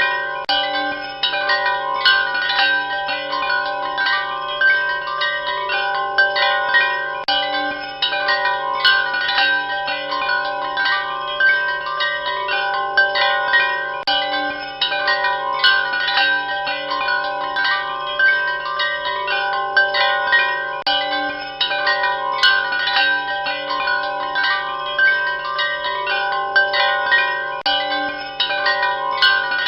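Wind chimes ringing continuously, many metal tones struck at random and overlapping as they ring on.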